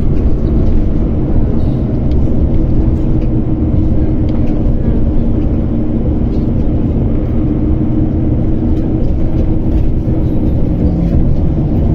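Steady low engine hum and road rumble heard from inside a moving vehicle.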